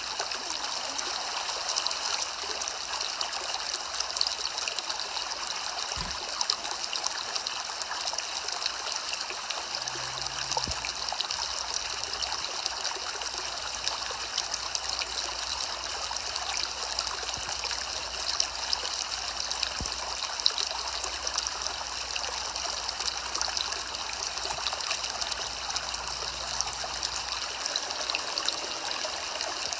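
Soft rain falling steadily: an even hiss of many fine drops.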